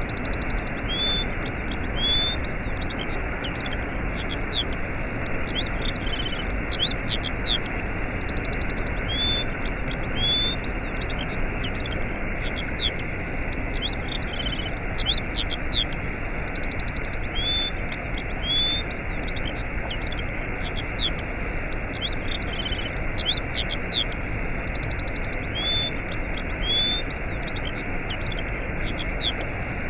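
Steady rush of a waterfall with small songbirds chirping and trilling high above it. The birdsong runs in a short sequence that repeats about every eight seconds.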